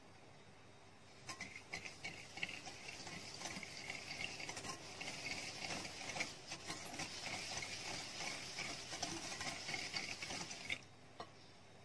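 Wire balloon whisk beating a runny mixture in a glass bowl: a fast, steady run of scraping and clicking of the wires against the glass, starting about a second in and stopping abruptly near the end, followed by one small tick.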